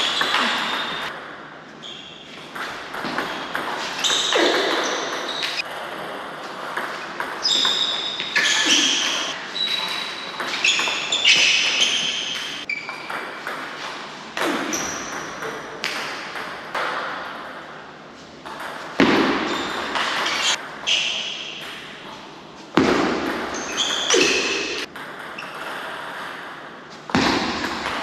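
Table tennis balls clicking off rackets and Butterfly tables in quick rallies, the sharp pings echoing around a large hall.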